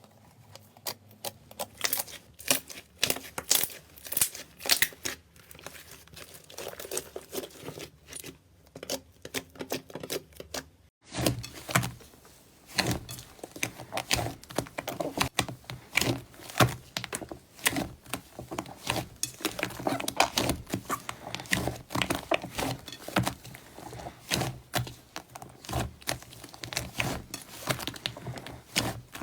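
Slime being squeezed, pressed and poked by hand: a dense run of sticky clicks, pops and crackles. It breaks off briefly about eleven seconds in and comes back fuller and denser.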